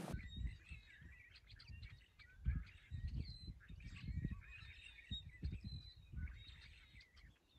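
Small birds chirping and twittering in many quick, high notes, faint, with irregular low thumps underneath.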